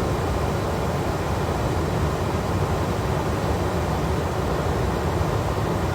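Steady rushing noise inside an Airbus A330 cockpit in flight, from the airflow and engines during the descent toward the approach.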